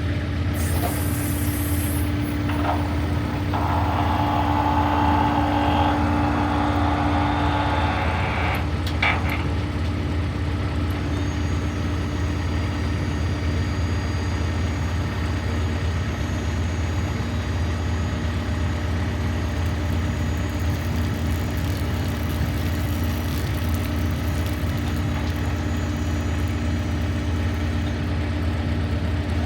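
The Vermeer LP 873 SDT vacuum excavator's 49 hp Yanmar diesel engine running steadily with a low hum. A rushing hiss comes in about two and a half seconds in and stops with a click about nine seconds in.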